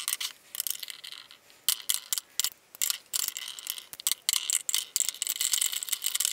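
Lipstick cases clicking and clacking against a clear acrylic lipstick organizer as they are set into its slots one after another, in a quick, irregular run of small sharp clicks.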